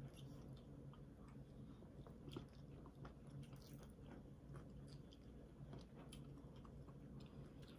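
Near silence with faint mouth sounds and a few soft clicks as a thick smoothie is sipped from a glass.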